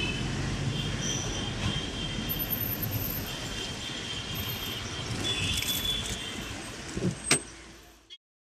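A vehicle rumbling steadily along with intermittent high squealing. A sharp click comes near the end, then the sound fades out and cuts off.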